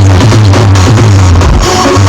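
Loud electronic dance music with heavy, sustained bass and a steady drum beat, played through a large DF Pro Audio sound system being tested.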